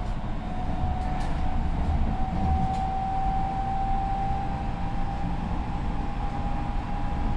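Tokyo Metro 10000 series electric train running at speed, heard from inside the car: the whine of its Mitsubishi IGBT inverter and traction motors holds one steady note that slowly rises in pitch as the train gathers speed, over a deep rumble of wheels on rail.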